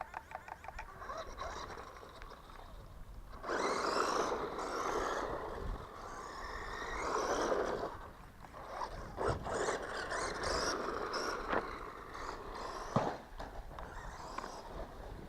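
Small hobby-grade 1/12 scale electric RC car driving in bursts, its motor and tyres scrabbling over the ground, with a few sharp knocks and clicks in between.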